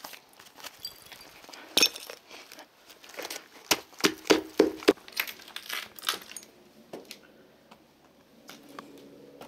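A suede shoe being emptied over concrete paving slabs: a series of sharp knocks and taps as it is shaken and tapped upside down, with small clinks. It stops about six and a half seconds in.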